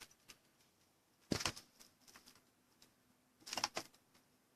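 Two brief clusters of light clicking taps, about two seconds apart, with a faint steady hum starting about a second and a half in.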